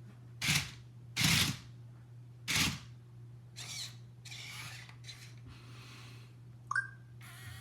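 Several short scraping, rustling handling noises in the first half, a short rising beep near the end, over a steady low hum.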